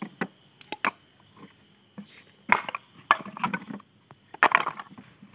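Coconut shell halves dropped one by one into a gap between stone blocks. They knock and clatter against each other and the stone at irregular intervals.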